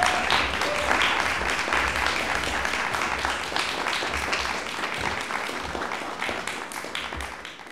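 A theatre audience applauding, a dense patter of many hands clapping, with a few voices calling out right at the start. The applause gradually fades out.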